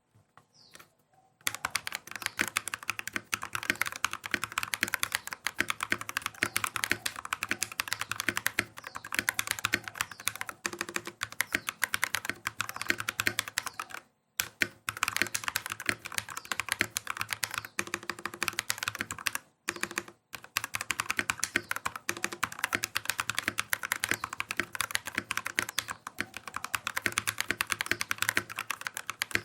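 Fast, continuous typing on a Vortexseries VX64 mechanical keyboard with lubed KTT Grapefruit linear switches and PBT keycaps, its case damped with 2 mm EVA foam. The key clacks begin about a second and a half in and pause briefly twice, near fourteen and twenty seconds.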